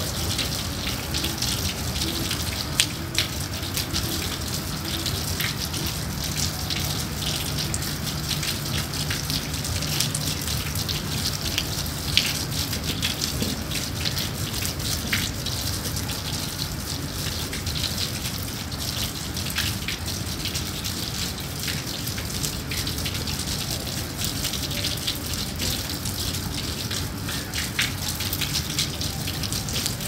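Steady rain falling: an even hiss with the irregular patter of individual drops.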